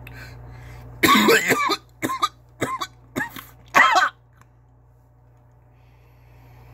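A man coughing about five times in quick succession, starting about a second in and lasting about three seconds, after inhaling a dab of cannabis concentrate.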